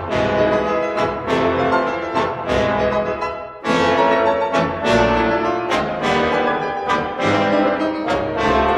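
Orchestral music with prominent brass, played as loud chords with sharp attacks.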